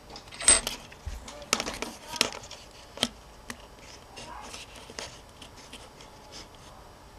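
Handling noise from a disassembled compact digital camera: scattered small clicks and scrapes of plastic parts and ribbon cables being pushed and lifted by fingers. The loudest click is about half a second in, with others at irregular moments after it.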